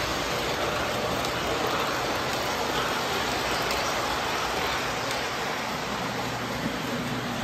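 Standard gauge tinplate model train running steadily on metal track: a continuous rolling rattle of metal wheels over the rails with a steady low hum.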